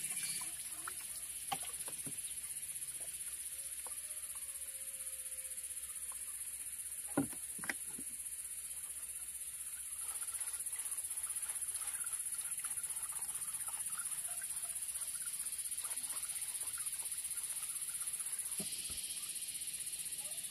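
Outdoor insect chorus: a steady, high-pitched drone that holds unbroken, with a couple of sharp knocks about seven seconds in.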